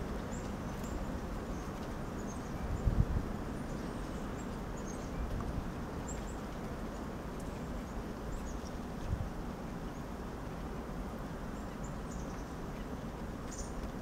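Steady low outdoor rumble with faint, short, high bird chirps scattered throughout. A brief low thump comes about three seconds in.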